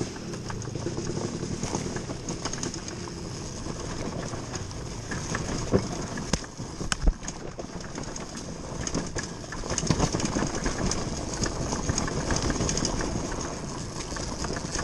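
TM Racing MX250 dirt bike coasting downhill with its engine off: knobby tyres rolling and crunching over dirt, leaves and rocks, with the chain and suspension rattling. Two sharp knocks about halfway through come from hitting bumps or rocks.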